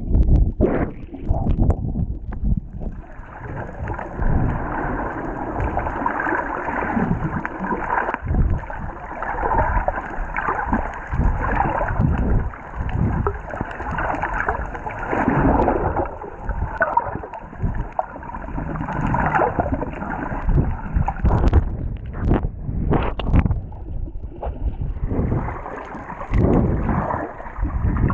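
Muffled underwater noise through a camera's waterproof housing: water rushing and bubbling past as a swimmer kicks with fins, with frequent low thumps. The rushing thins out for a few seconds near the end, then returns.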